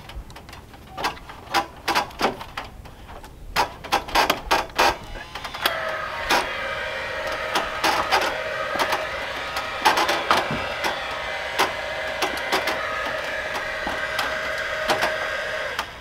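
Scattered clicks and knocks, then about six seconds in a steady mechanical whine starts, with clicking over it, and it cuts off suddenly near the end.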